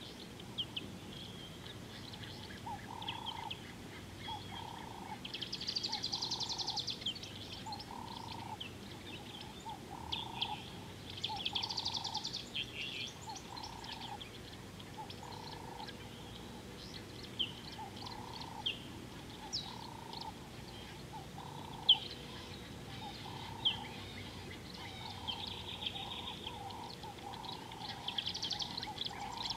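Wild birds calling at a river's edge: a short, low call repeated about once a second, with higher chirps and trills over it in bursts, loudest twice in the first half and again near the end.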